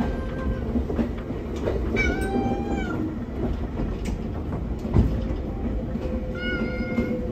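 The Tama Densha train's recorded cat meow sound effect plays twice over the steady running rumble of the train car, once about two seconds in and again near the end. A single sharp knock comes about five seconds in.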